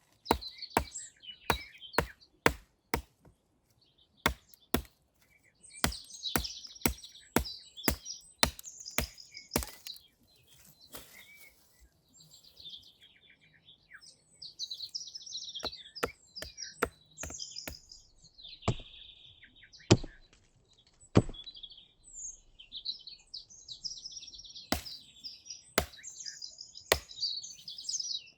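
Wood being chopped: a long run of sharp, irregular strikes, at times about two a second, with small birds chirping and singing throughout.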